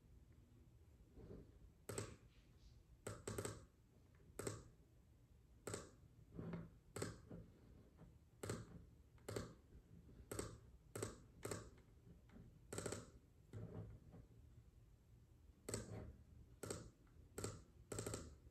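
Faint, irregular clicking on a computer, keys and clicks roughly one a second, some in quick pairs, over a low room hum.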